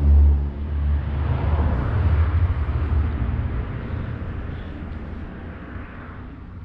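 A vehicle passing by: a broad rushing noise that swells over the first two seconds and then slowly fades away.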